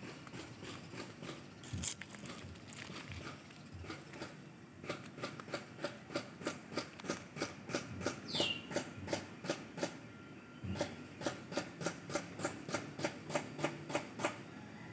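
Footsteps on the rubble-strewn riverbank, about three a second, stopping briefly a little after the middle and then going on. A short high bird call falling in pitch sounds once, about eight seconds in.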